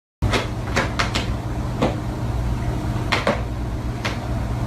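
A series of sharp knocks or clicks, about eight, irregularly spaced, over a steady low hum.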